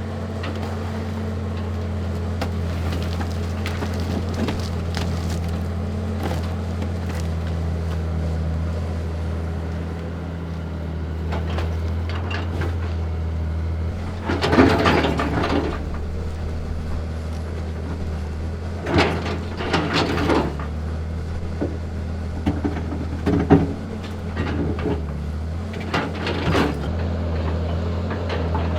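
An engine running steadily with a low, even drone. Several clattering knocks break in over it, the loudest about halfway through and a few more in the second half.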